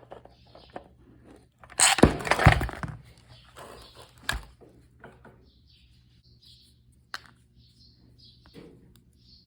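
Knocks, clicks and clatter of hard parts and tools being handled during work on an electric circular saw. A loud cluster of rattling knocks comes about two seconds in, then single sharp clicks, over a faint steady hum.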